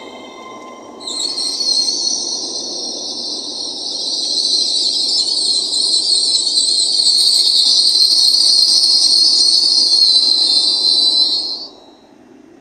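LNER Azuma (Class 800) train braking at the platform: a loud, high-pitched hiss of brakes and wheels over the low rumble of the train rolling. It starts suddenly about a second in, grows louder, then cuts off sharply near the end as the train stops.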